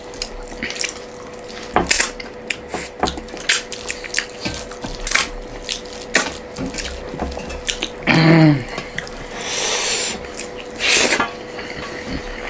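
Close-up eating sounds: fingers mixing rice and fish curry on metal plates, with wet chewing and many small sticky clicks and smacks. A brief voiced hum, falling in pitch, comes about eight seconds in, and a faint steady tone runs underneath.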